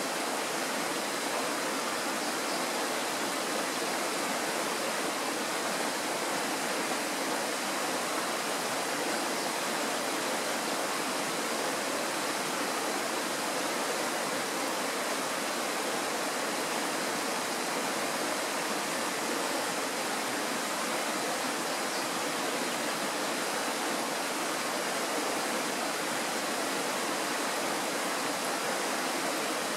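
Kirowa Woda, a Tatra mountain stream, rushing steadily: an even, unbroken hiss of flowing water.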